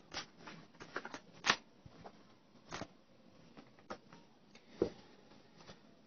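A deck of tarot cards being shuffled and handled: irregular soft taps and slaps of cards, about half a dozen, the sharpest about one and a half seconds in.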